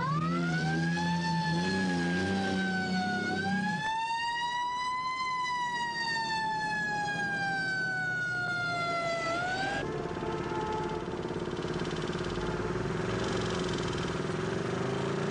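Fire engine siren wailing in slow rising and falling sweeps over a heavy engine, cutting off sharply about ten seconds in. Street traffic noise with a steady engine hum follows.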